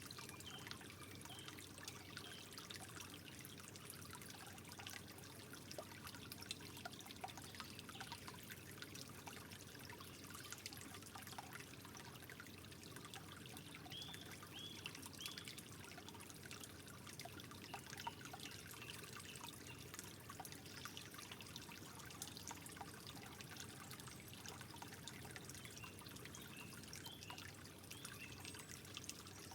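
Quiet, steady trickle of water, with many small droplet plinks through it.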